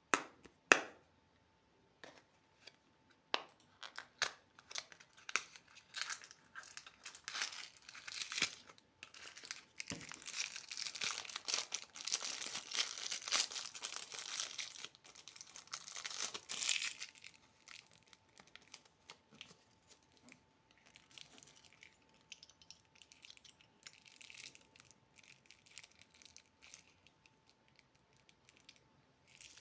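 Candy packaging being crinkled and torn open: a couple of sharp snaps at the start, scattered crackles, then several seconds of dense crinkling and tearing, fading to softer rustling.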